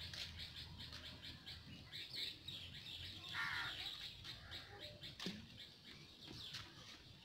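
Faint small birds chirping, with many quick, high notes.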